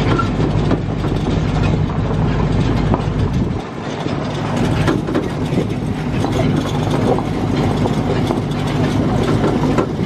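Tractor engine running as it pulls an open bench-seat wagon over rough ground, with steady clattering from the wagon. The low hum of the engine thins out about three and a half seconds in.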